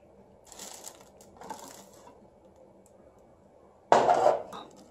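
Grey plastic top cover of a pouch-film machine being handled: two soft scraping rustles in the first two seconds, then a sudden clatter about four seconds in as the cover is set down on the table, the loudest sound.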